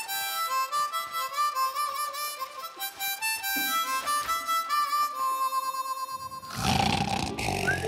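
Harmonica playing a slow melody of single held notes. About six and a half seconds in, a loud, rough growling noise takes over.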